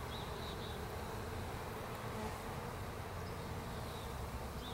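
Steady buzzing of many honey bees from a newly installed package, flying around an open hive.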